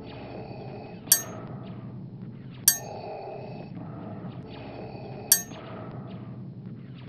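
A ceramic coffee mug with a spoon in it clinking sharply three times, each clink ringing briefly, as it is lifted to a Darth Vader helmet's mask. Behind it runs a steady, slow Darth Vader respirator breathing sound.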